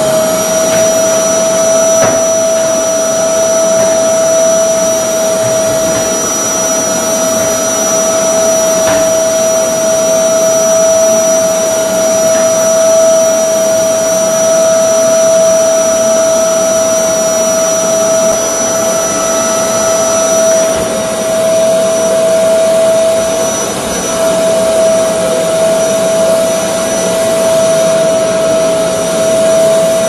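LG canister vacuum cleaner running steadily with a constant high motor whine while it sucks over a tiled floor.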